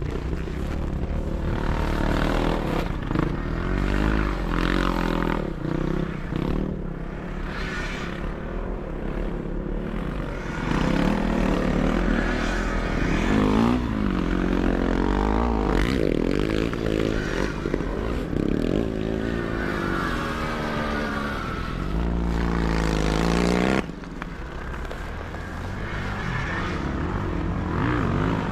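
Sidecar motocross motorcycles racing, their engines revving up and falling back over and over with more than one bike heard at once. The loudest engine drops away sharply about 24 seconds in.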